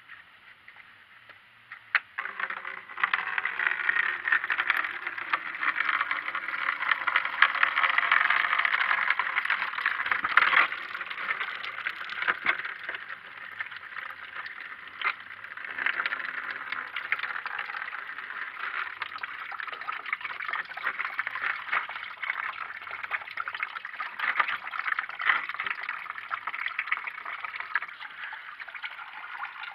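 Old engine coolant pouring from an opened drain plug of a Mitsubishi Colt's cooling system and splashing onto the surface below. It starts about two seconds in, is heaviest for the next several seconds, then settles to a steadier pour.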